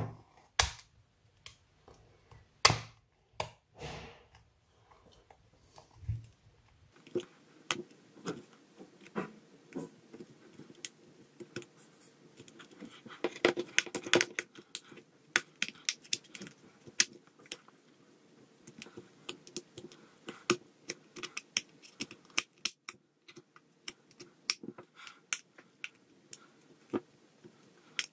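Irregular small clicks, ticks and scrapes of a plastic opening pick working around the edge of an HTC One M9's metal body, prying the glued housing apart. The clicking is sparse at first and comes thicker and faster from about seven seconds in.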